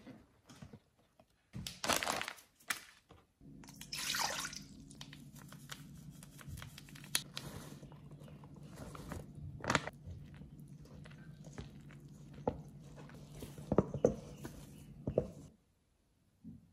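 Close-miked food-prep sounds: green tea hotteok mix rushing from its packet into a stainless steel bowl, with a wet mixing sound. A steady low hum runs under most of it, with scattered sharp taps and knocks. Near the end, the dough thuds on a wooden cutting board.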